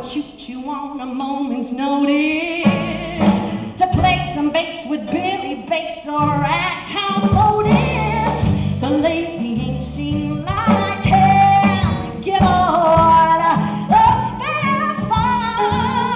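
A woman singing a show tune in full voice, live, with instrumental accompaniment that fills in a few seconds in.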